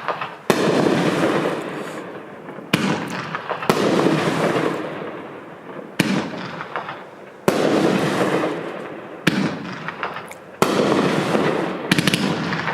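500-gram, 20-shot consumer fireworks cake firing shot after shot: about eight sharp reports at irregular intervals of one to two and a half seconds, each followed by a noisy tail that fades over a second or two.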